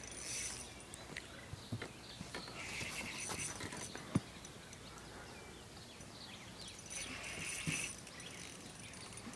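Fishing reel's drag giving line in two short, faint runs, about a third of the way in and again near the end, as a hooked catfish pulls line off the reel; one sharp click between them.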